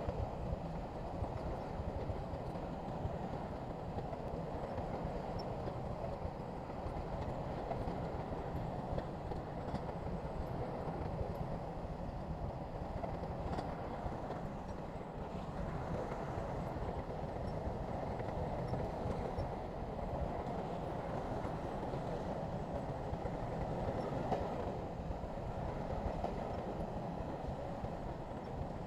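Crawler bulldozer at work: a steady, dense diesel engine drone with the clatter of its running gear.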